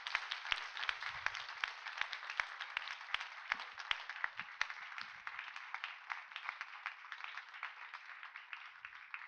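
Audience applauding, many hands clapping, gradually fading away toward the end.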